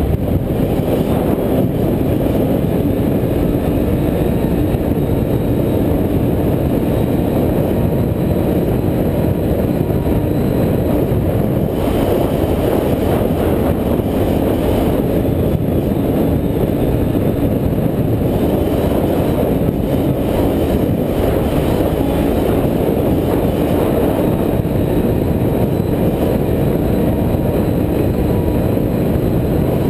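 Can-Am Renegade ATV running at a steady cruise along a dirt road: a deep, even rumble of engine and riding noise picked up by a camera mounted on the machine, with no marked revving.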